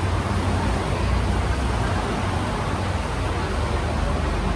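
Steady vehicle noise: a deep, even rumble under a constant hiss, with no distinct events.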